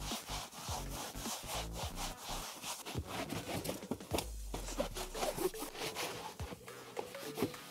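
Cloth scrubbing back and forth on car floor carpet in quick, repeated rubbing strokes.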